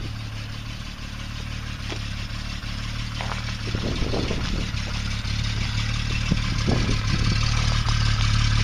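Triumph TR6 straight-six engine idling steadily at the exhaust, growing gradually louder.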